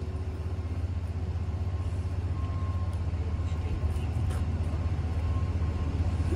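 Steady low rumble of a motor vehicle's engine running, with an even fast pulse to it.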